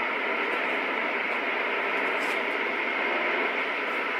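CB radio receiver hissing with steady band static on an open channel, with no clear voice coming through.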